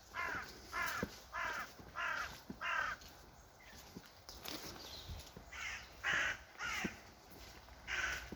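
Crow cawing: a run of five harsh caws about half a second apart, then after a pause of a couple of seconds four more, the last near the end.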